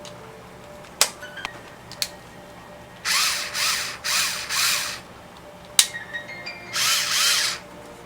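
Electric drill spinning a rotary knife-sharpener attachment in short trigger bursts, the motor speeding up and dropping back each time: four quick whirs about three seconds in and two more near the end. A few sharp clicks come before the bursts.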